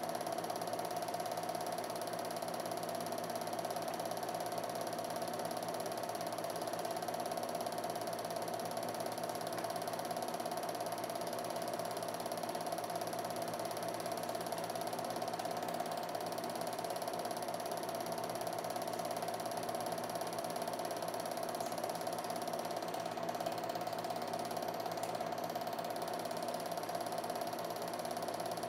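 Film projector running, a steady mechanical whirr with fixed tones that does not change.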